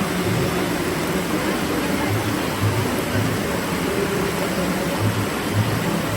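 Steady rain falling, an even hiss, with faint low rumbles underneath.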